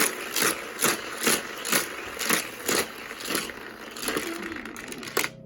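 Hot Wheels track's battery-powered booster sending toy cars around the loop, a loud clattering pass about twice a second, which stops suddenly near the end.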